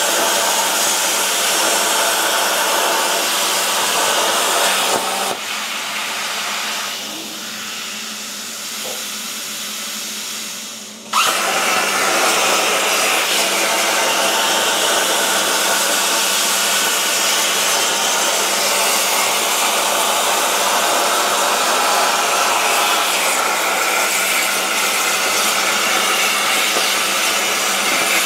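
CNC plasma table's torch cutting 16-gauge sheet steel: a loud, steady hiss of the arc and air. About five seconds in it drops to a quieter, duller hiss, and about eleven seconds in the arc strikes again with a sudden jump in level and holds steady.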